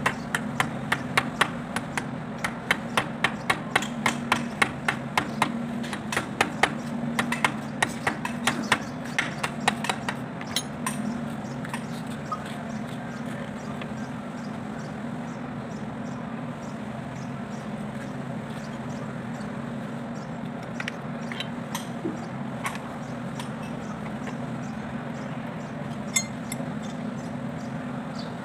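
Rapid series of sharp metal clicks and taps, about three a second, as metal parts of a tractor's front axle hub are worked by hand. The clicks stop about ten seconds in, leaving a steady low machine hum and a few scattered clinks.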